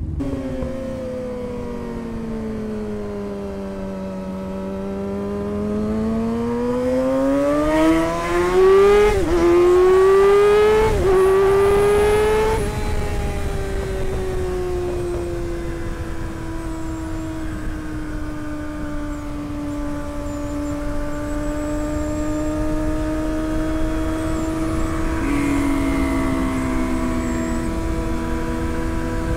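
Sport motorcycle engine accelerating hard through the gears: the revs climb steeply, drop at three quick upshifts about a third of the way in, then settle to a steady cruise. Wind rushes over the helmet microphone throughout.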